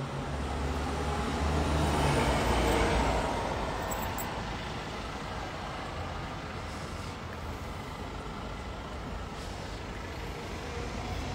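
Road traffic: a motor vehicle's engine hum swells to its loudest about two to three seconds in and fades, over a steady wash of street traffic noise.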